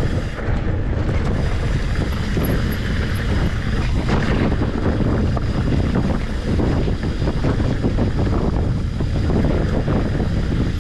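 Mountain bike rolling fast over rocky singletrack, with wind rumbling on the microphone and many small rattles and knocks from the bike and the stones.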